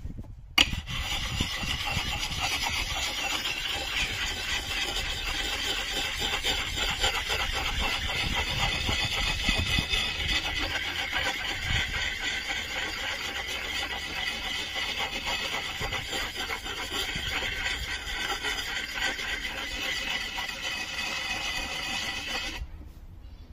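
Round axe-sharpening stone (an axe puck), wetted with water, scrubbed rapidly against the steel bit of an axe head: a continuous rasping grind. It starts with a sharp click under a second in and stops abruptly near the end.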